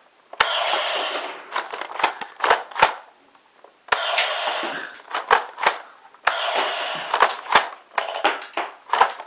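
Battery-powered electronic sound effects from a GI Joe Night Raven toy jet's speaker: a noisy rush followed by a string of sharp gunfire-like pops, played three times with short pauses between.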